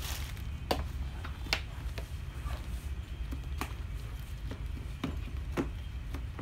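Sharp knocks and clatters, about five spread over a few seconds, as a padded seat is handled and set down into the plastic body of a kids' electric ride-on car. A steady low hum runs underneath.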